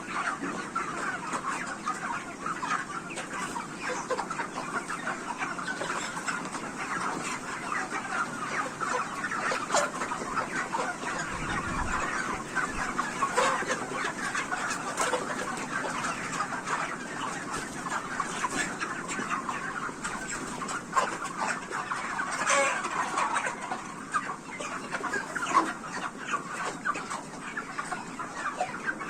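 A large flock of 44-day-old broiler chickens clucking continuously, many birds calling over one another, with sharper individual calls standing out now and then.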